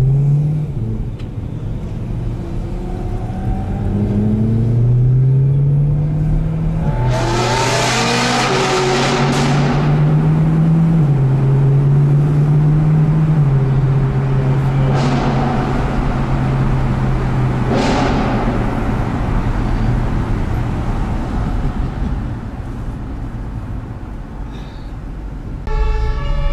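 Modified BMW E92 M3 V8 engines at full throttle in a road tunnel, revving up through the gears with loud exhaust crackling about seven to ten seconds in and again twice later. Described as loud.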